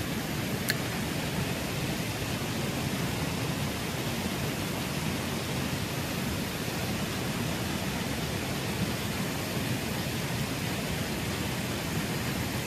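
Steady rushing of river water spilling over a low concrete weir, with one light click under a second in.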